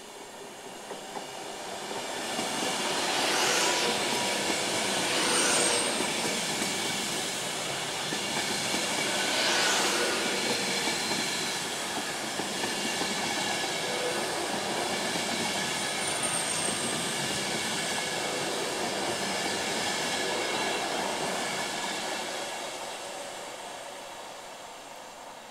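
Class 390 Pendolino electric train passing close by at low speed, its wheels running over the rails, with a few brief high squeals. The sound builds as it draws level, holds while the carriages go by, and fades near the end.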